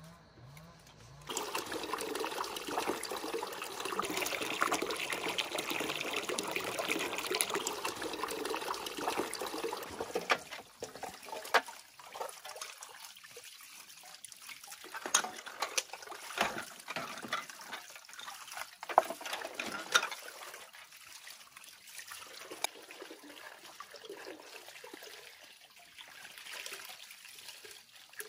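Water running in a steady rush that starts suddenly about a second in and eases off around ten seconds in, followed by quieter splashing with scattered sharp clinks and knocks.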